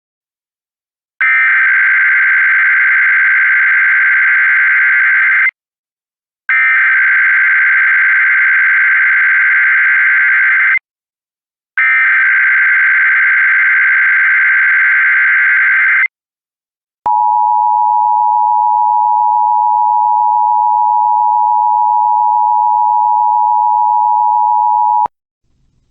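Emergency Alert System SAME header data bursts: three buzzing digital bursts of about four seconds each, a second apart. They are followed by the EAS two-tone attention signal, held steady for about eight seconds before cutting off sharply. This is the start of an EAS alert broadcast.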